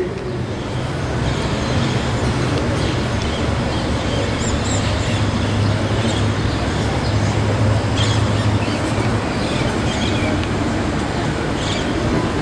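Steady background rumble and hiss with a low hum, strongest in the middle, and a few faint high chirps.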